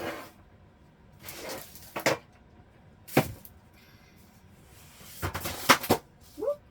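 Craft supplies being rummaged through by hand: rustling and handling with a few sharp knocks, a cluster of knocks near the end being the loudest.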